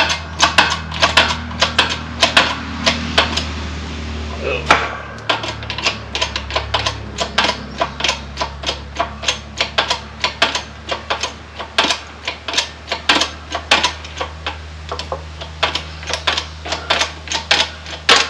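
Hydraulic shop press being hand-pumped, its handle and pump clicking in a fast, even rhythm of about three clicks a second, with a short pause and a single knock around four to five seconds in. The press is pushing the old center support bearing off a driveshaft.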